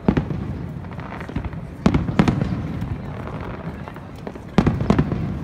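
Aerial firework shells bursting in sharp booms, one right at the start, two in quick succession about two seconds in and two more near the end, with smaller crackles and a low rumble between them.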